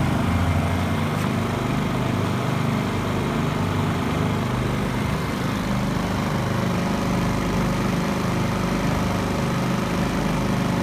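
Champion 2800 portable generator's small engine running steadily under no load, with a fairly deep hum.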